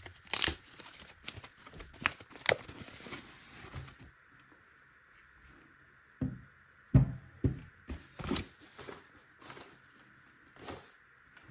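Packaging being handled during an unboxing: scattered knocks, scrapes and rustles of cardboard and wrapping, in two loose clusters with a lull between them.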